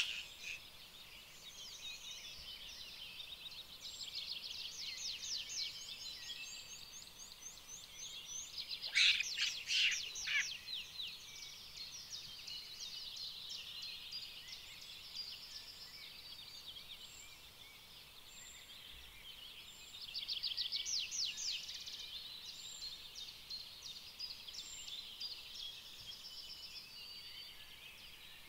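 Birds calling in the surrounding trees: repeated rapid trills and high chirps run on throughout, with two loud harsh calls about nine and ten seconds in and a louder run of trills from about twenty seconds in.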